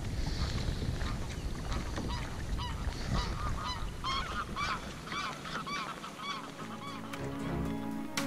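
Geese honking, a run of about ten calls, two or three a second, over a low rumble of wind on the microphone. Music begins near the end.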